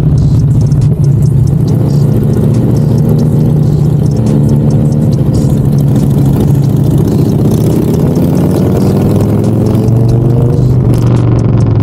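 Motorcycle engine running under way, its pitch slowly rising and falling as the throttle opens and closes.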